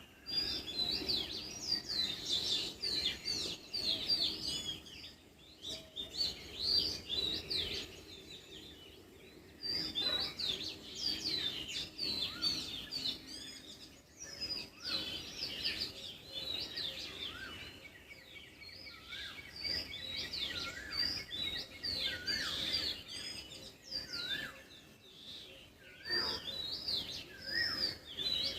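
Many small birds chirping and singing together in dense bouts of quick, high notes, with short lulls between bouts.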